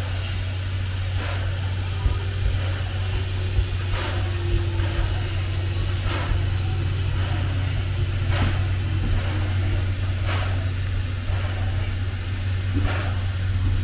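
C11 tank steam locomotive with steam up: a steady low hum under a short hiss of steam about every two seconds.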